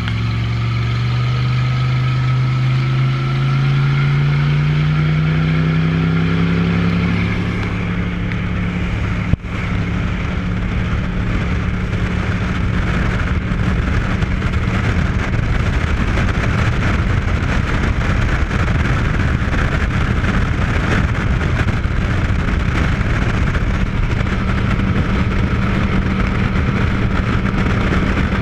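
Chevy 454 big-block V8 in a speedboat accelerating, its note climbing for about the first seven seconds, then running steadily at speed under the rush of wind and water. One sharp click about nine seconds in.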